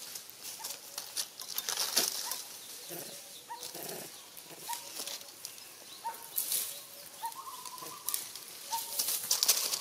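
Dry leaf litter crackling and rustling as macaques shift and clamber on it, in many small irregular crackles. A short, slightly rising chirp repeats about every second or so through it.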